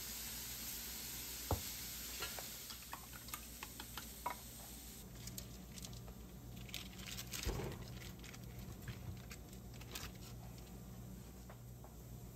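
Food frying in a pan, sizzling with a steady hiss that thins out about five seconds in into scattered crackles and pops, with a couple of light knocks.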